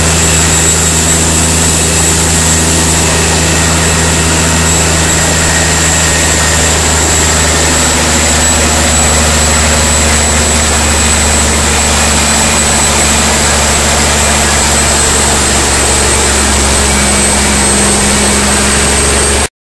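Scania 13-litre XPI inline-six diesel race-truck engine running steadily at an even speed, a low drone with a thin high whistle above it.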